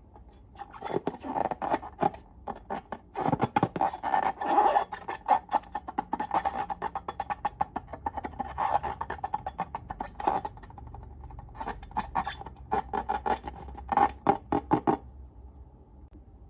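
Slime being squeezed and pressed by hand, giving rapid trains of wet clicks and pops in clusters with short pauses.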